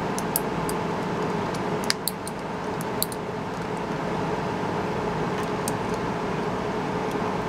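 Several small, sharp plastic clicks and snaps in the first three seconds as a key-fob remote's case is pried open with a small screwdriver. Under them runs the steady hum of fans and an air conditioner.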